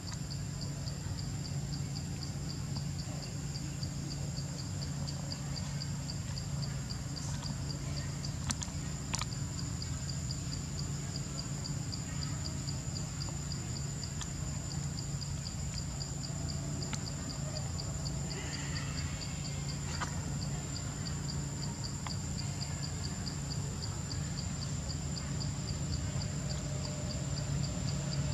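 Forest insects calling without a break: a fast pulsing trill and a thin steady high whine over a low steady hum, with two sharp clicks about nine seconds in.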